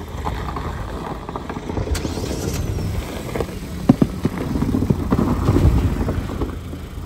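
Mahindra XUV700 SUV running at low revs close by as it is eased into a parking spot on snowy, muddy ground, with a sharp click about four seconds in.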